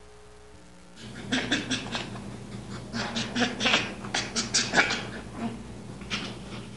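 Baby chimpanzee calling excitedly in a rapid run of short, high calls, starting about a second in after a faint hum.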